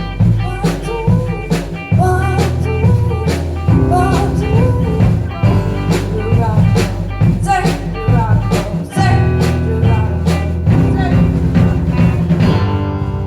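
Live band of drums, bass, electric guitar and piano playing the closing bars of a pop-rock song with a steady drum beat; it lands on a final chord that rings out right at the end.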